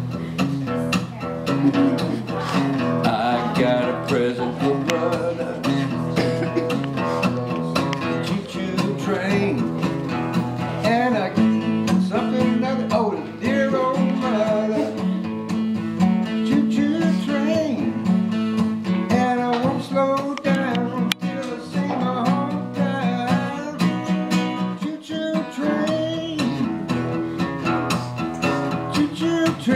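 Steel-string acoustic guitar played solo, a moving melody over a steady bass line.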